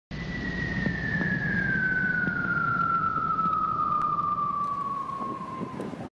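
Intro sound effect for a news logo: a single tone gliding slowly and steadily down in pitch over a low rumbling noise bed, cut off abruptly at the end.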